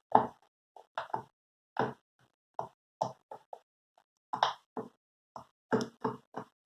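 Silicone pop-it fidget toy having its bubbles pressed one after another: a run of short soft pops, irregular, about two or three a second.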